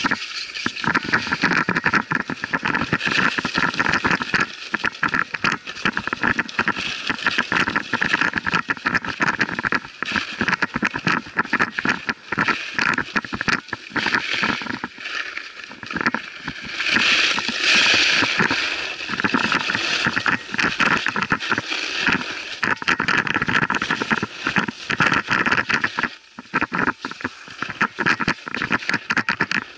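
Skis scraping over packed, rough piste snow on a downhill run: a continuous rasping hiss that swells and eases with the turns, loudest a little past halfway.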